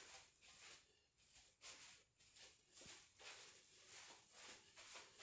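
Near silence, with faint soft rustles at a walking pace, about two a second: footsteps on carpet.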